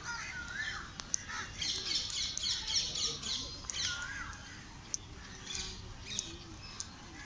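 Birds calling and chirping in trees, with a burst of dense twittering about a second and a half in and a few separate arching calls. Faint distant voices underneath.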